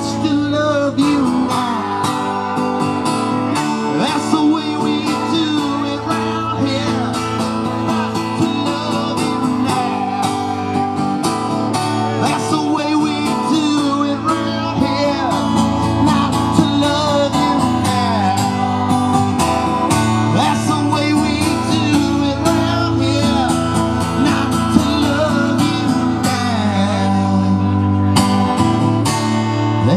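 Live song: an acoustic-electric guitar strummed in a steady rhythm, with singing over it.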